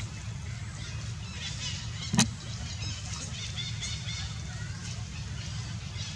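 Outdoor ambience of many short high chirping calls over a steady low rumble, with one sharp knock about two seconds in.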